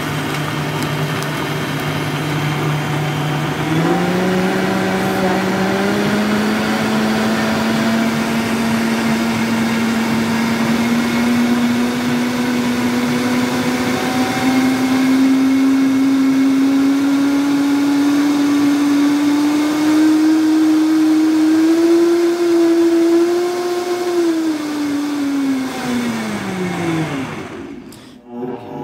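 Vitamix E310 blender motor running at high speed, blending a green juice of water, leafy greens, apples, cucumbers and ice. Its pitch steps up about four seconds in and climbs slowly, then winds down and stops near the end as it is switched off.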